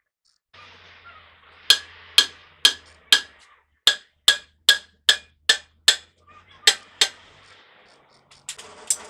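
Hammer striking a truck's wheel hub during a wheel bearing and oil seal job: about a dozen sharp metallic blows, roughly two a second, each with a short ring. A brief clatter comes near the end.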